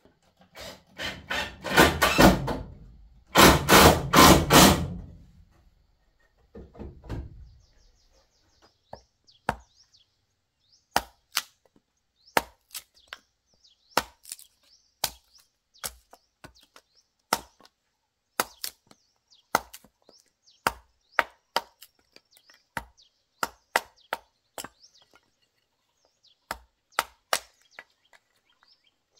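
A machete splitting kindling on a wooden chopping stump: sharp separate chops, about one to two a second, from about nine seconds in. Near the start there are a few seconds of loud rushing noise.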